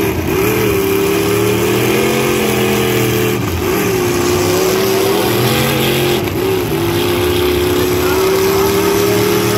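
Demolition derby trucks' engines running hard at high revs: a loud, steady drone whose pitch dips briefly a few times as the throttle is lifted and reopened.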